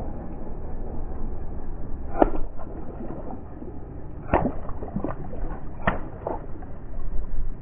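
Car tyre rolling over water balloons on wet asphalt, bursting them one after another: sharp pops with splashing water, the loudest about two, four and a half and six seconds in, over a steady low rumble of the tyre.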